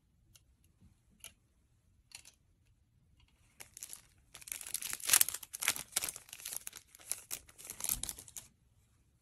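Thin plastic wrapping crinkling as a microfiber cleaning cloth is pulled out of it, a dense crackly rustle lasting about five seconds. It is preceded by a few light clicks from the eyeglasses being handled and set down.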